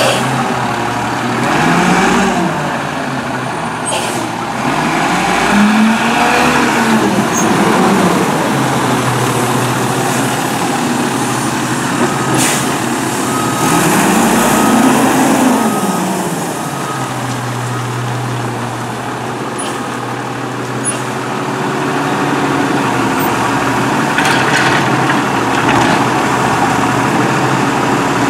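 McNeilus Autoreach side-loading garbage truck working a row of carts: the engine revs up and falls back three times as it drives the hydraulic lift arm, with a few sharp clunks. A short run of beeps sounds midway, and bursts of air hiss come near the end.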